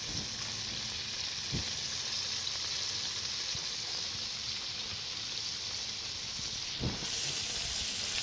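Flour-coated chicken pieces deep-frying in a pot of hot oil, with a steady sizzle and two faint knocks.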